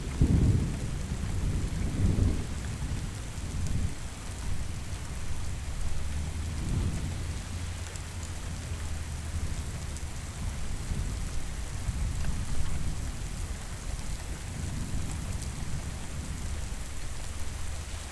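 Steady rain with thunder rolling low several times, the strongest rumbles in the first couple of seconds.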